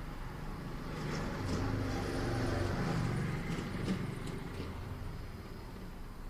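A motor vehicle passing by on a residential street, its engine hum swelling over a couple of seconds and fading away, with a few light ticks while it passes.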